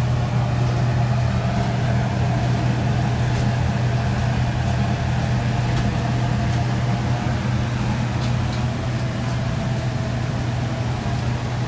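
Steady low hum of an airliner cabin, the drone of its air conditioning and machinery, unchanging throughout.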